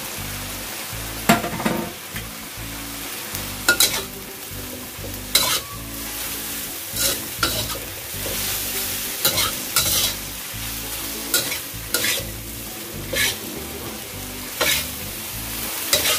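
Metal spatula scraping and clanking against a wok while bean sprouts and sliced onion are stir-fried, over a steady sizzle. The scrapes come irregularly, about every one to two seconds.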